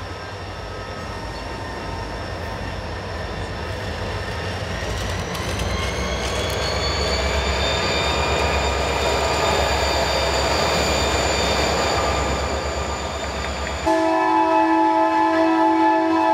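A train passing close by: a low pulsing rumble with steady high tones that rise in pitch and grow louder over a few seconds. About fourteen seconds in it switches abruptly to a louder, held multi-note horn.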